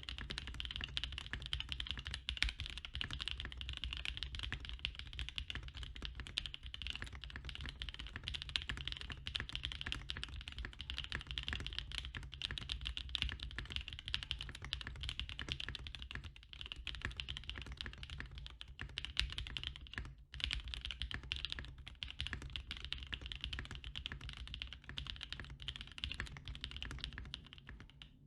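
Continuous fast typing on a 60% custom mechanical keyboard with NK Cream linear switches broken in by 300k actuations, mounted on an FR4 half-plate, with GMK keycaps. Rapid overlapping key clicks and bottom-outs, with a few brief pauses.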